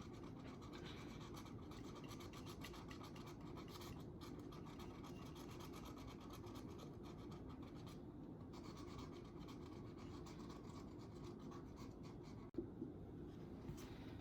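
Faint, steady scratching and rubbing of colour being stroked onto a surface, with one short knock about twelve and a half seconds in.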